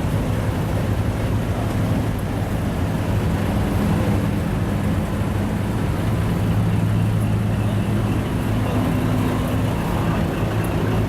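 Heavy truck diesel engine running steadily at a low, even idle.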